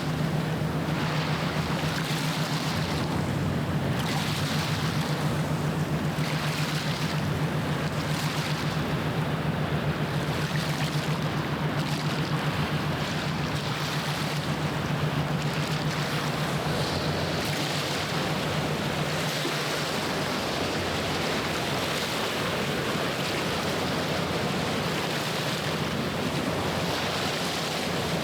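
Low, steady engine hum of a passing ship, fading out a little past the middle, over the continuous wash of waves along the shore with some wind on the microphone.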